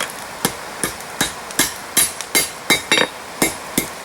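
Hammer blows on steel, about two and a half strikes a second in a steady rhythm, as the bent nose of a pair of long-handled pliers is hammered straight on an anvil.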